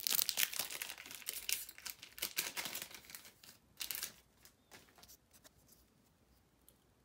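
Kaldheim Magic: The Gathering booster pack wrapper being torn open and crinkled by hand: a quick run of rustles over the first four seconds, dying away by about five seconds in.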